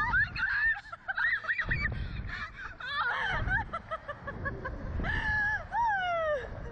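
A young woman laughing hard in high-pitched, honking bursts, ending in a couple of long squeals that fall in pitch, over wind buffeting the microphone as the slingshot ride swings.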